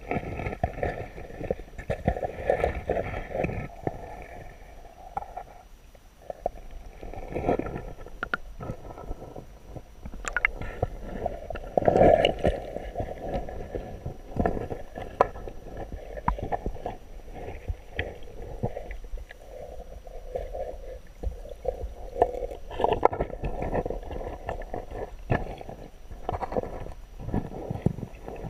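Water heard through a camera held underwater in a river: irregular muffled gurgling and rushing, with frequent small knocks and clicks and a louder surge about twelve seconds in.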